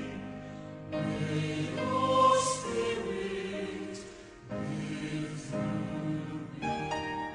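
Background music: a choir singing slow, held chords in phrases, with short breaks about a second in and about four seconds in.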